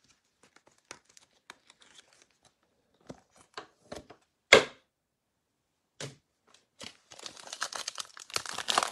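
Light clicks and taps of trading cards being handled, with one louder sharp snap about halfway. From about seven seconds in, a foil trading-card pack is torn open and crinkles.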